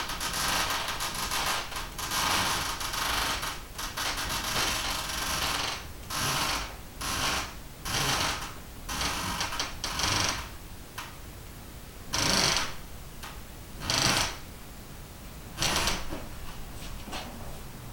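Rope running through the pulleys of a homemade block-and-tackle as it is hauled hand over hand, lifting a wooden trapeze rack loaded with bicycles toward the ceiling. Nearly continuous at first, then separate pulls about every one to two seconds, thinning out near the end.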